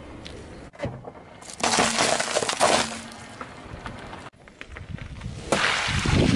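Car tyre crushing small objects, in short clips joined by abrupt cuts: a loud crunching noise about two seconds in, and another loud crushing noise near the end as a BMW's tyre presses into a pile of water-gel beads.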